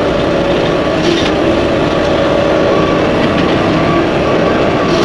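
Skid steer running a Blue Diamond cutter attachment through brush: a loud, steady drone of engine and spinning cutter.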